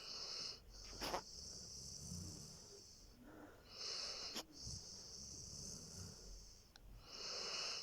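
Saint Bernard snoring in its sleep: three slow breaths about three and a half seconds apart, each a raspy, airy rush with a low snore between, and a short click after the first two.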